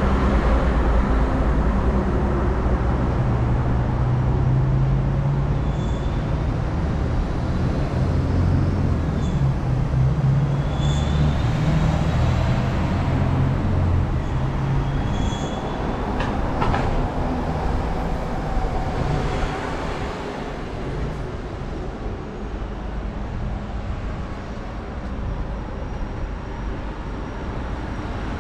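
Road traffic rumbling on the road below, with a heavy vehicle's deep engine running loudest for roughly the first fourteen seconds, then easing off.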